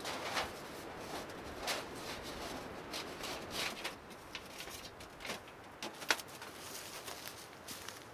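Irregular scuffs and knocks, one sharper knock about six seconds in, over a steady hiss.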